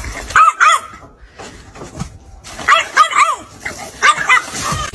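A puppy yipping and whining in short, high-pitched calls, a few at a time in three quick clusters.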